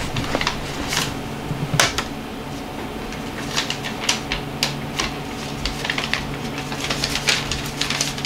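Paper being handled: irregular crinkles and rustles of sheets, over a steady low hum.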